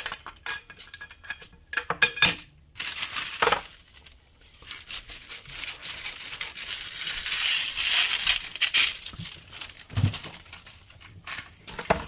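A metal springform pan clinking several times against the counter, then parchment paper crinkling for a few seconds as it is folded around the pan, with a dull knock near the end.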